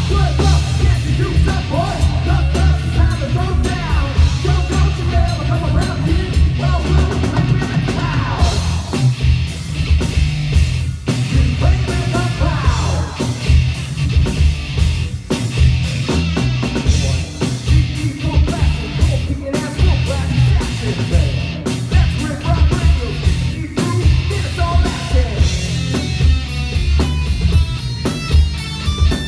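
Live rock band playing: electric guitar, bass guitar and drum kit, with a singer's vocals over them.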